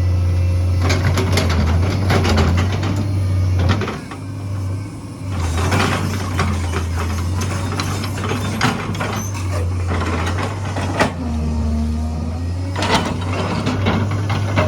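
Diesel engine of a heavy digging machine running steadily at a low drone, with repeated knocks and rattles from the machine at work. The drone drops back briefly about four seconds in, then picks up again.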